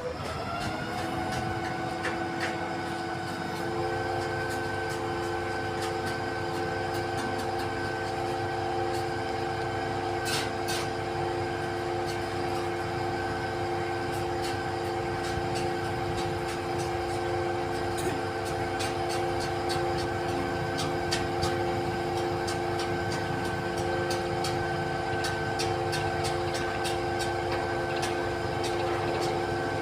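An XCMG truck-mounted concrete pump's engine and pump drive running at a steady, held speed, a constant whine of several tones that climbs and settles just after the start. A few faint clicks come through now and then.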